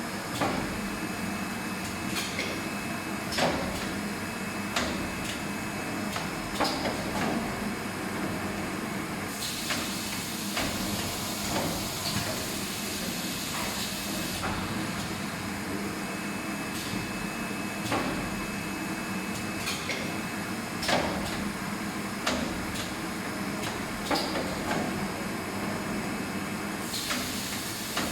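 Hardcover book case-making machinery running with a steady hum and sharp clacks every second or two. A hiss comes in for about five seconds near the middle and again near the end.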